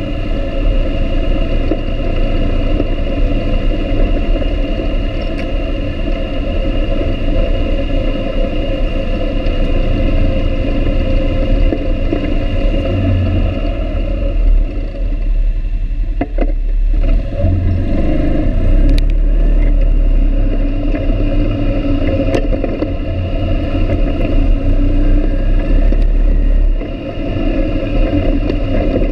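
ATV engine running steadily as the quad rides along a bumpy dirt trail, with a few sharp knocks around the middle.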